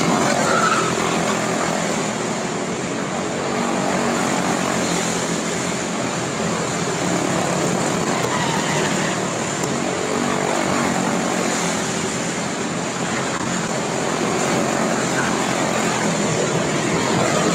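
A pack of small single-cylinder Briggs & Stratton Animal racing engines buzzing at full throttle as the cars lap a small oval. The sound swells and eases every few seconds as cars pass close by.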